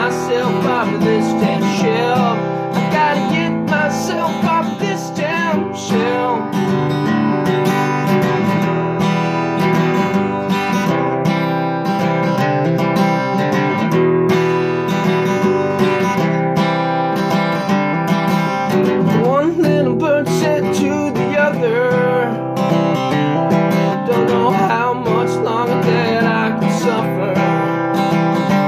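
Acoustic guitar strummed and picked steadily, playing a song accompaniment.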